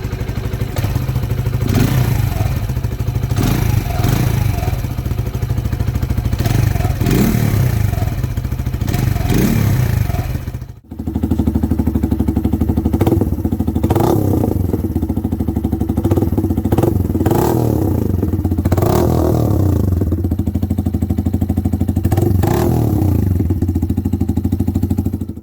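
Motorcycle engine exhausting through a Megaton muffler, idling with the throttle blipped every second or two. A brief break about ten seconds in is followed by a changed exhaust note that keeps the same blips.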